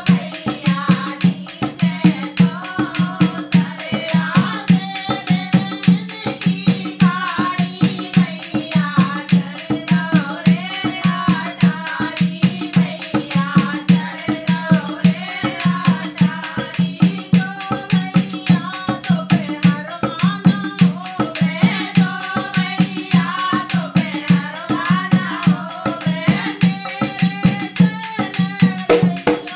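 Women singing a Hindi folk wedding song (bhat geet) in unison to a hand-played dholak. The drum keeps a fast, steady beat the whole way through.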